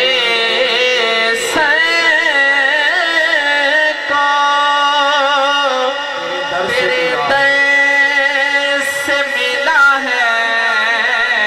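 Male naat reciter singing a long, wavering, drawn-out melodic passage between lines of the verse, over a steady held drone.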